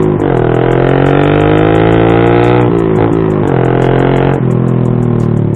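Suzuki Smash 115's single-cylinder four-stroke engine through a loud open-type M4 aftermarket muffler, accelerating through the gears on the road. The revs climb, drop at a gear change about three seconds in, climb again, then fall away as the throttle closes about four and a half seconds in, with wind noise from an open helmet visor.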